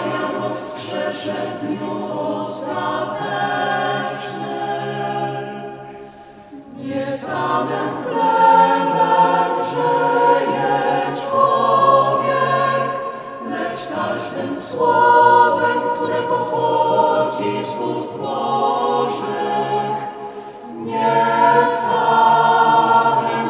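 A small church choir (schola) sings a liturgical communion antiphon in several voice parts. The singing goes in long phrases and pauses briefly for breath about six seconds in and again about twenty seconds in.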